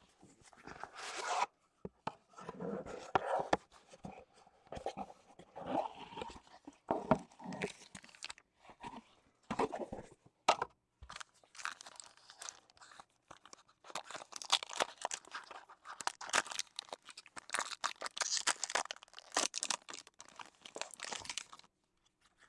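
Plastic wrapping on a trading card box crinkling and tearing in irregular bursts as it is stripped off by hand, then the wrapper and cards handled. The rustling stops shortly before the end.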